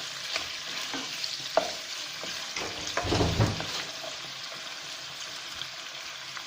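Garlic, onion and fried chicken pieces sizzling in a frying pan while a utensil stirs them, with sharp clicks against the pan. A louder, heavier scrape or clatter comes about three seconds in.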